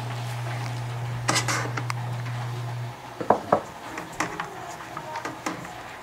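Light metallic clicks and clinks of multimeter test probes and a small fuse being handled against a microwave oven's sheet-metal chassis, the two sharpest about halfway through. A steady low hum runs underneath and cuts off about halfway.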